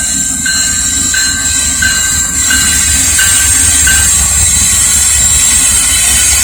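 Norfolk Southern freight train rolling past with a low rumble and a strong high-pitched wheel noise that grows louder. Over it, a bell strikes about one and a half times a second and stops about four seconds in.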